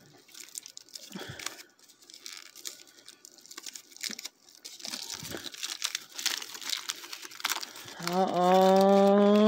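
Thin foil wrapper of a Yowie chocolate crinkling and tearing as it is peeled off by hand. About eight seconds in, a woman's long, loud excited shout rises and is held.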